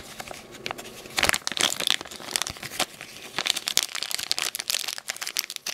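Thin clear plastic bag crinkling and rustling as it is handled by hand, in a stream of irregular crackles.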